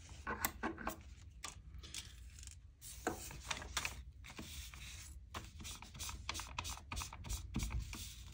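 Ink pad dabbed and scraped against paper edges to age them. It makes a run of quick, irregular scratchy taps that come faster toward the end.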